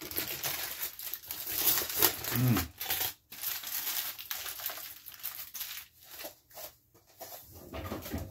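Aluminum foil being peeled back and crumpled by hand: irregular bursts of crinkling and tearing, thinning to a few separate crinkles near the end.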